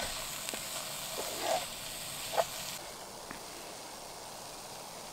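Perch and mushrooms sizzling in a small camping frying pan while a spatula stirs them, with a few light knocks and scrapes. The sizzle drops away about three seconds in, leaving a quieter hiss.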